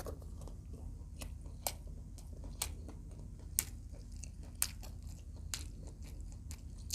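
Close-up chewing of crispy fried adobo quail, with sharp crunches about once a second.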